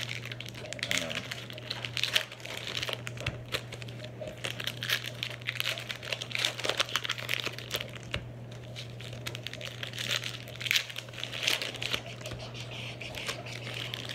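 Glossy Donruss Optic trading cards being shuffled and slid against one another in the hands: a continuous run of quick rustles and small clicks over a steady low hum.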